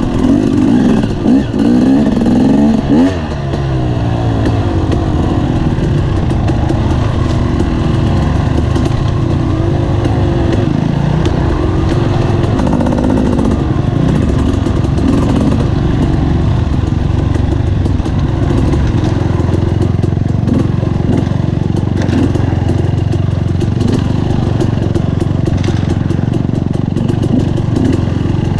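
Dirt bike engine being ridden along an off-road trail, revving up and down over the first few seconds, then running more steadily.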